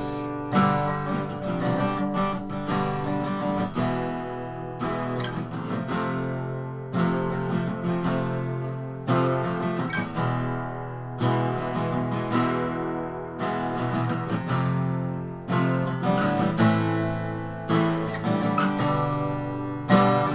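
Acoustic guitars strumming chords at a steady rhythm, an instrumental passage with no singing.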